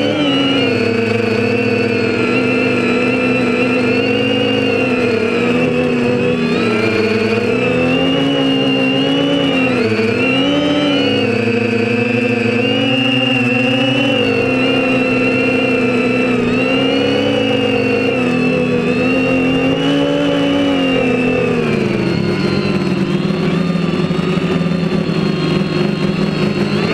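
Quadcopter's Tiger MT2216-9 1100kv brushless motors driving APC 9x4.7 propellers, heard from the onboard camera: a loud, unbroken whine whose pitch keeps rising and falling with the throttle.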